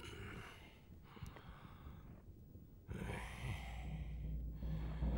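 A man's soft, breathy exhalations, two long breaths as he strains to reach up from a ladder. A low steady hum comes in about three seconds in and grows louder.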